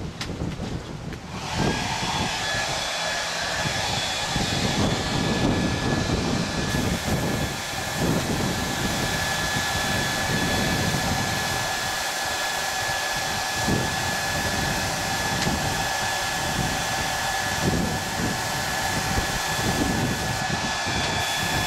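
Handheld hair dryer switched on about a second and a half in, then blowing steadily with a high, even whine from its fan over an uneven low rumble. It is drying fresh airbrush paint on a hoodie.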